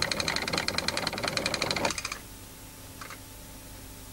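Wind-up novelty chattering teeth clacking rapidly, about ten clacks a second, then stopping about two seconds in.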